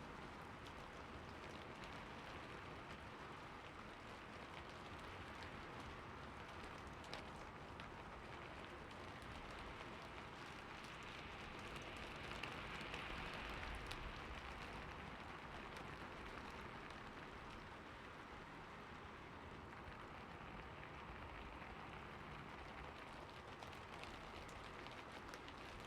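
Rain falling steadily on a rooftop, a soft even patter of many drops, swelling a little about halfway through.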